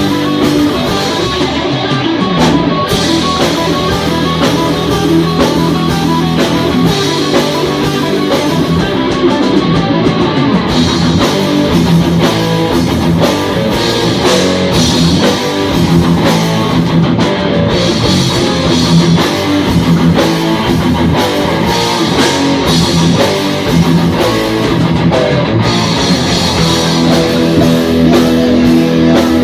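A live heavy metal band playing loud and steady: distorted electric guitars, bass and drum kit in an instrumental passage with no singing.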